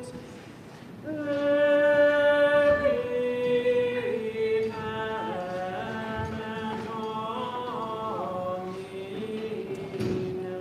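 Liturgical plainchant sung by voices, slow notes held and then moving up and down in small steps. It is quieter for the first second and loudest from about one to four seconds in.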